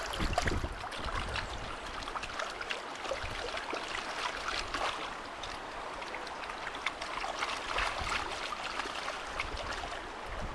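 Shallow river water running and splashing, with many small, irregular splashes and trickles.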